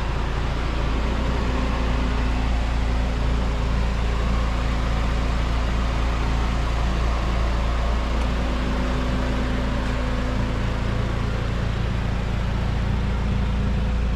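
A car engine idling steadily: a constant low hum with a few steady tones above it and no change in pitch.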